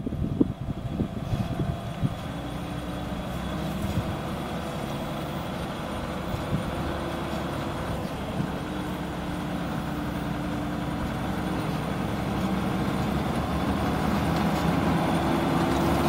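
Lely combine harvester's engine running steadily as the machine drives slowly closer, growing louder toward the end as it comes alongside.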